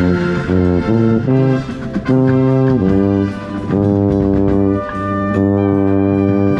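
Drum corps brass line playing a run of held chords, with the contrabass bugles' low notes strong underneath. About seven chords, each held for half a second to a second and a half with short breaks between them.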